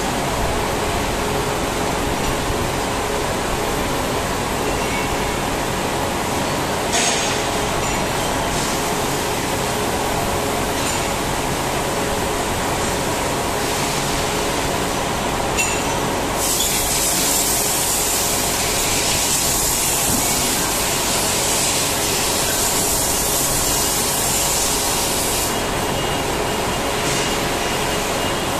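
Steady mechanical running noise of a CNC machine and workshop machinery, a constant hum with a few steady tones. A high hiss joins a little past the middle and stops near the end, with a couple of short clicks along the way.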